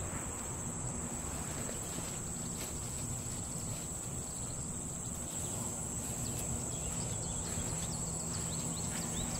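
Steady outdoor ambience of insects giving a continuous high-pitched drone.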